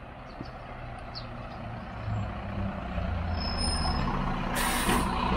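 Tow truck's engine running as it pulls up, its rumble growing steadily louder, with a short sharp hiss of air brakes near the end.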